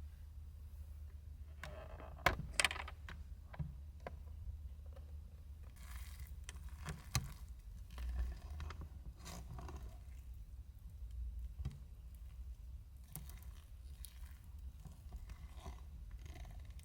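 Small objects being handled: scattered clicks, light knocks and rustling scrapes, the sharpest a pair of clicks about two seconds in, over a steady low rumble.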